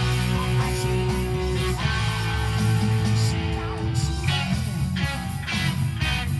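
Gretsch electric guitar played, picked notes and held, ringing pitches in a rock-and-roll style.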